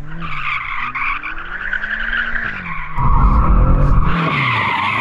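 BMW M5 CS drifting in circles to warm its tyres: the rear tyres squeal steadily while its 4.4-litre twin-turbo V8 revs rise and fall. A heavy low rumble comes in about three seconds in, the loudest part, for about a second.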